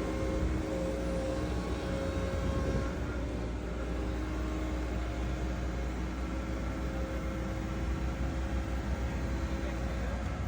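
Excavator diesel engine running steadily.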